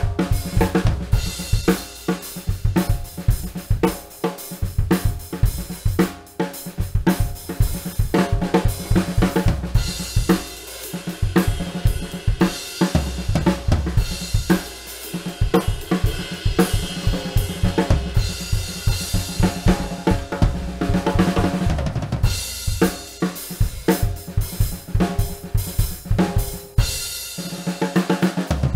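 Drum kit groove showcasing a Dixon Classic Wood Hoop 14x6.5 maple/mahogany snare drum at medium tuning, with bass drum, hi-hats and cymbals. The cymbals ring more heavily through the middle stretch.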